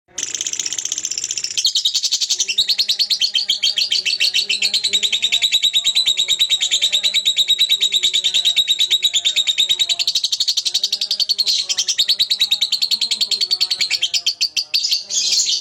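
Fischer's lovebird giving its long rattling chatter, the 'ngekek': one unbroken run of very fast, high repeated notes that becomes ragged and breaks up near the end.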